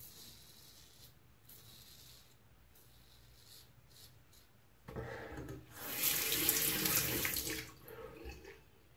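Faint scraping of a Merkur Progress safety razor over lathered stubble, then about five seconds in a bathroom tap is turned on and runs into the sink for a few seconds, loud and splashing, before it stops near the end.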